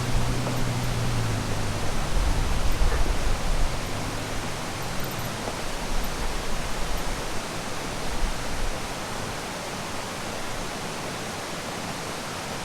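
Steady rushing of a flowing stream, with the low hum of the truck's engine fading away in the first second or two.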